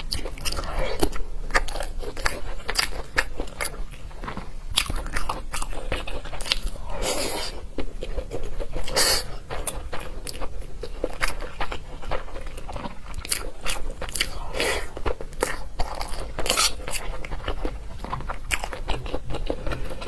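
A person chewing a mouthful of food: a steady run of short wet clicks and smacks, with a few louder bursts now and then.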